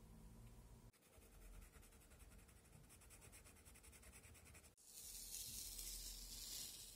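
Colored pencil scratching on watercolor paper in quick, even strokes, then paper tape being peeled off the edge of the paper with a steady, louder tearing hiss.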